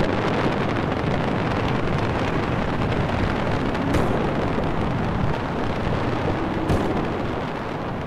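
A loud, steady rush of wind, like a huge blast of air, easing a little near the end.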